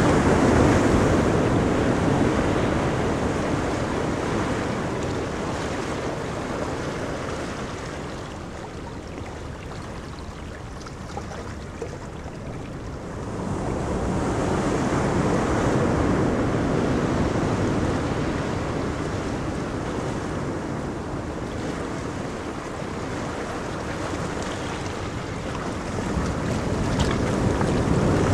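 Sea surf: waves breaking and washing in as a continuous noisy rush. It ebbs slowly over the first ten seconds or so, surges again about thirteen seconds in, and builds once more near the end.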